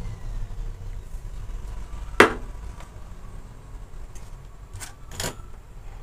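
Hand tools and a circuit board handled on a workbench: one sharp tap about two seconds in and two lighter clicks near the end, over a steady low hum.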